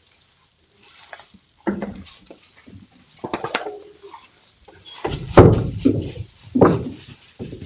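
A dog whining and crying several times, with a sharp knock about five seconds in.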